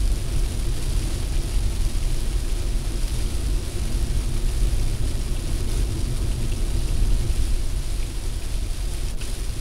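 Steady road and wind noise inside a car driving at about 80 km/h on a wet highway: a low rumble of tyres with rain hiss from the windshield over it.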